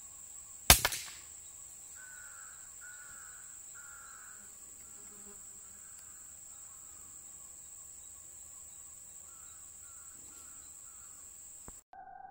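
A single shot from a Sharp Tiger pneumatic air rifle, a sharp crack under a second in with a brief ringing tail. Afterwards a bird gives a string of short falling calls over a steady high insect whine, and everything cuts off abruptly near the end.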